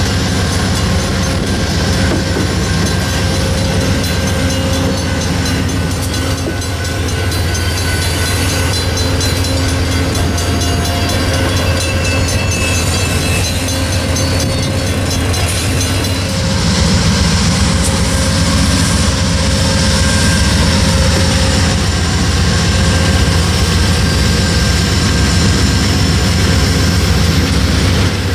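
Amtrak passenger train rolling slowly past, its cars moving over the rails while the diesel engines of its GE P42DC Genesis locomotives run with a steady low hum. The engine hum grows louder a little past halfway.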